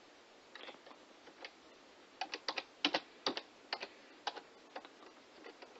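Typing on a computer keyboard: irregular keystroke clicks, a few at first, then quicker runs of keys from about two seconds in.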